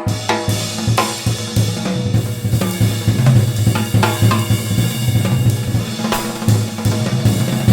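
Music with a full drum kit: kick, snare, hi-hat and cymbals over a steady bass line.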